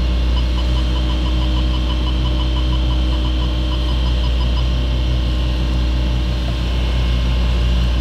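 Sailboat's engine running steadily under way. A rapid series of faint electronic beeps, about five a second, runs over it for roughly the first four seconds.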